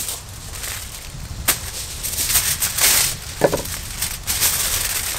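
Aluminium foil crinkling and rustling as a sheet is spread out and folded around a package, with a few sharper crackles.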